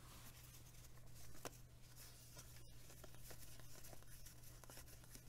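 Near silence: a low steady room hum, with a few faint clicks and rustles of cardboard trading cards being slid through by hand.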